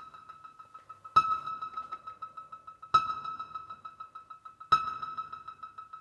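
Modular synthesizer drone: a steady, high, pulsing tone with a sharp struck note that rings out about every second and three quarters, three times.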